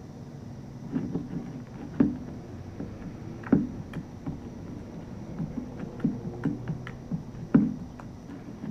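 Slime being squeezed and played with, making irregular short pops and squelches, the loudest about two, three and a half and seven and a half seconds in.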